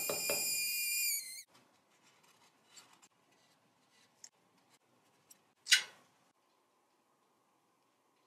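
Gas torch flame whistling with a steady, high sound while a small metal hammer taps several times on a tin tab. The whistle cuts off suddenly about a second in. After that it is mostly quiet, with faint small clicks and one short, sharp scrape or snap of metal just before six seconds.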